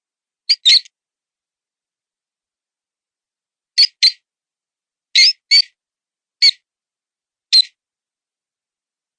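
Mouse distress squeaks, the cry of a wounded mouse used as a predator call: eight short, high squeaks, several in quick pairs, with dead silence between.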